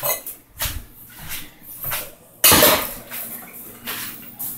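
Irregular clatter and rustle of cooking pots and utensils being handled, with a sudden loud noisy burst about two and a half seconds in.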